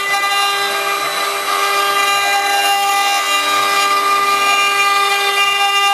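A 4-axis CNC stone milling machine's spindle whines steadily while its cutter carves a stone figure under water coolant, a held high tone with a hiss of cutting noise.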